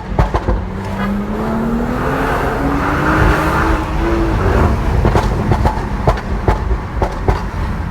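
BMW 340i's turbocharged straight-six, on a Stage 2 custom tune, revving up steadily for about three seconds and then lifting off. A run of sharp exhaust crackles and pops follows on the overrun, the pops-and-bangs map of the tune.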